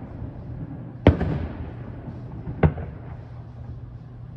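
Aerial firework shells bursting: a loud bang about a second in that rumbles as it fades, then a second sharp bang about a second and a half later, over a steady low hum.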